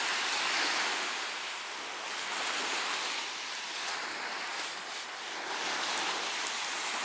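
Small waves breaking and washing up a sandy beach: a steady surf wash that swells and eases every few seconds.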